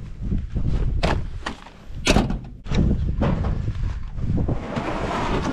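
Several sharp knocks and thuds as gear and snowshoes are handled against a pickup truck's body, followed by a rustling scrape near the end.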